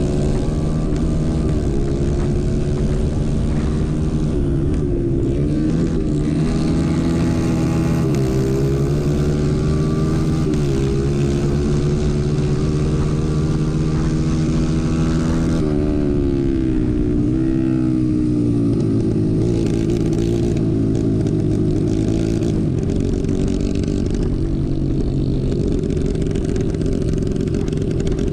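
Racing kart's engine heard from on board at racing speed, its pitch rising on the throttle and dropping as it slows for a corner about halfway through.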